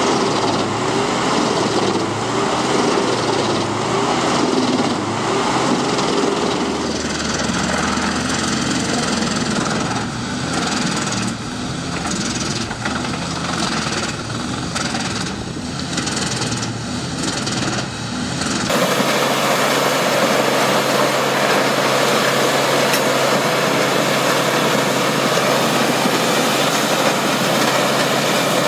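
Large industrial wood chippers running while they are fed logs, with repeated cracking of wood being chipped through the middle. About two-thirds through, the sound changes abruptly to the steady, even noise of a Peterson 5710D horizontal grinder at work.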